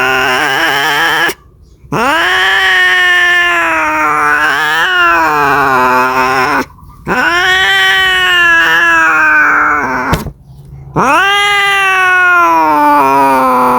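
Domestic cat yowling in long, drawn-out caterwauls, the mating call of a cat in heat: each call swoops up, holds for about three seconds and sags at the end, with short breaks between. Three calls follow one another, the end of a fourth opening the stretch.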